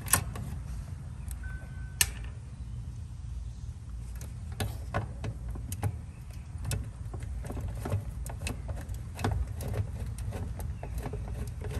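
Screwdriver turning the screw of a heat pump's capacitor mounting bracket to free the old capacitor, giving scattered small metal clicks and ticks over a steady low rumble. A short high beep sounds about a second and a half in.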